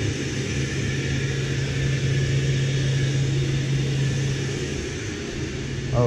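Munchkin gas boilers firing, with a steady hum and an even rushing hiss from their combustion blowers and burners.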